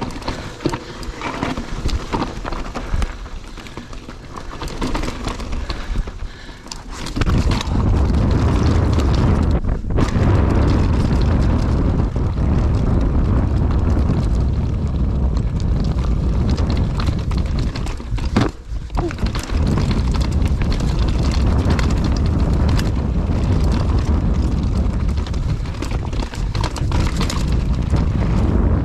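Mountain bike riding over a rough, rocky trail: the bike clatters and ticks over rocks and roots. About seven seconds in, a loud low rumble of wind buffeting the microphone takes over and keeps on, dropping out briefly twice.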